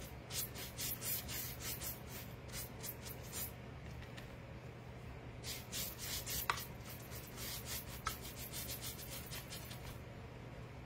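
Paintbrush dry-brushing metallic gold paint onto a painted picture frame: quick, dry, scratchy bristle strokes in rapid runs. There is a pause of about two seconds about four seconds in.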